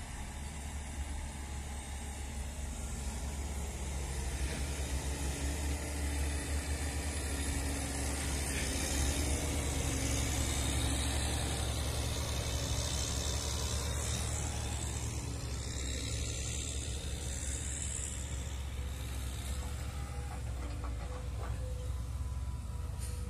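Caterpillar motor grader's diesel engine running while it grades soil, a steady low drone that grows louder over the first ten seconds.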